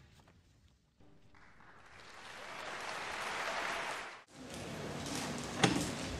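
Audience applauding, swelling up and then cut off abruptly partway through, leaving low room noise with one sharp knock near the end.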